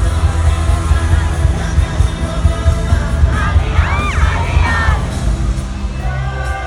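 A K-pop song performed live over an arena sound system: heavy bass beat with singing, and high yells rising over it about three to four seconds in.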